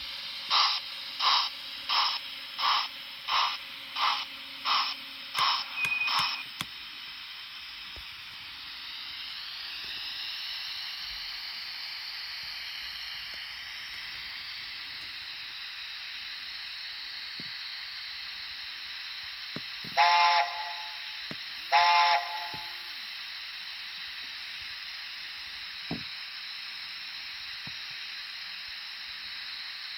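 Steam sound from the DCC sound decoder of a Dapol A4 Mallard model locomotive, played through its small speaker: regular exhaust chuffs at about one and a half a second stop about six seconds in, giving way to a steady steam hiss. About 20 and 22 seconds in come two short blasts of the A4's chime whistle.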